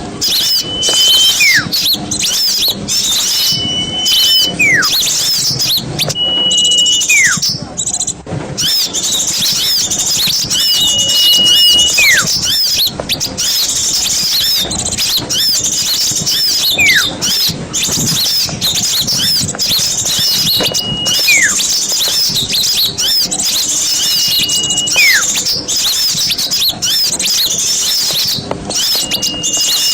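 Several small songbirds singing at once, a dense stream of rapid high chirps and trills. Every three to four seconds a clearer whistle cuts through: a short level note, then a whistle sliding downward.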